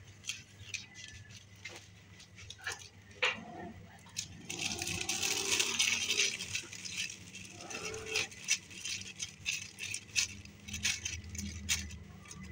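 Thin plastic bag crinkling as it is handled, with many sharp clicks scattered throughout and the densest crackle from about four to seven seconds in.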